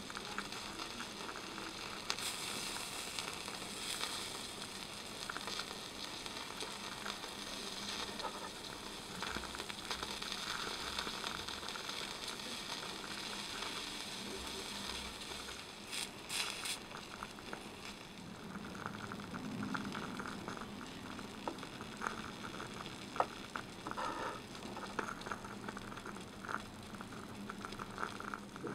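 Broth simmering in a miniature copper hotpot, a steady soft sizzle and bubble. Now and then come light clicks of tiny chopsticks against the pot and bowl as food is lifted out.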